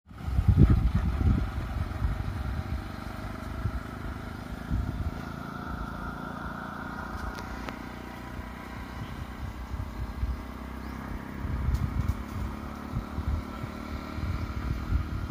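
Motor vehicle engine noise from the road: a low, uneven rumble, loudest about a second in and again near the end, with a faint steady mid-pitched drone above it.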